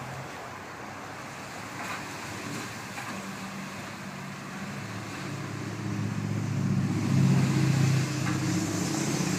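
Backhoe engine running, growing louder about halfway through as it revs up, with two faint knocks about two and three seconds in.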